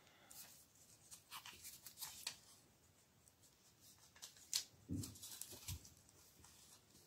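Faint rustling and crinkling of paper being wrapped by hand around a small wire-wound iron transformer core, with scattered soft handling clicks. The loudest click comes about four and a half seconds in.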